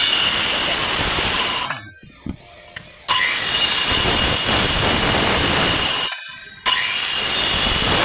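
Electric power tool cutting wood to shape a tenon, its motor whining steadily over the cutting noise. It runs in three long passes, dropping off briefly about two seconds in and again about six seconds in.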